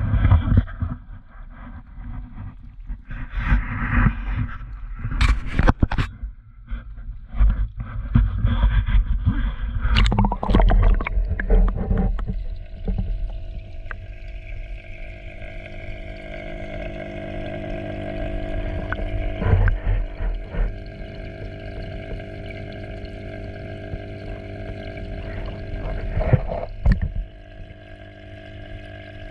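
An action camera being handled and lowered into a garden pond, knocking and splashing. About twelve seconds in it settles underwater, where a steady hum with several held tones takes over, broken by a few knocks.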